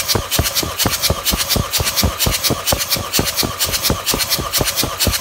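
Starter motor cranking a 1.9-litre eight-valve turbodiesel (Audi AWX) engine without it firing, for a cold compression test of the fourth cylinder, which reads 26 bar. Even, rhythmic compression strokes at about five a second.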